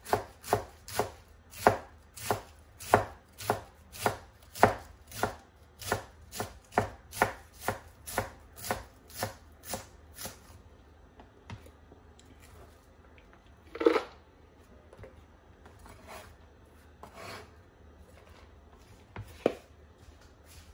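Chef's knife slicing cabbage into fine shreds on a cutting board, a steady knock about two times a second. The chopping stops about halfway, leaving a single louder knock and a few soft handling sounds.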